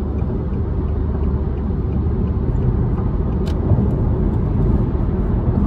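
Steady low road and engine rumble inside a car cabin while driving at highway speed, with one faint click about three and a half seconds in.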